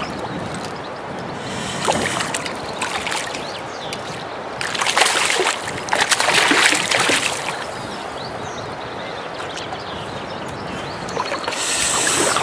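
A hooked trout splashing and thrashing at the surface of a shallow stream as it is played in, over the steady sound of running water. The loudest splashing comes in two bouts, about five and about seven seconds in, and picks up again near the end.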